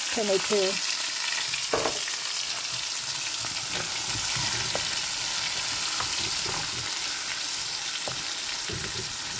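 Hot oil sizzling steadily in a frying pan as tinned chopped tomatoes are stirred in with fried onion and ginger-garlic paste, with occasional soft scrapes and knocks of a spatula against the pan.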